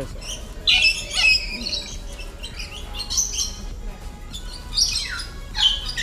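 Lorikeets giving shrill squawks and screeches in short bursts, about a second in, around three seconds in, and again near the end.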